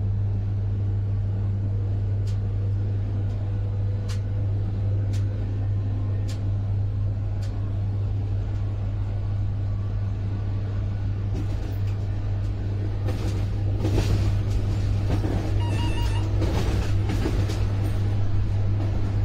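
Electric train hauled by a MÁV V63 'Gigant' locomotive, running at speed: a steady deep hum with sharp clicks about once a second as the wheels cross rail joints. From about two-thirds of the way in it grows louder and more rattling, with a few short high tones.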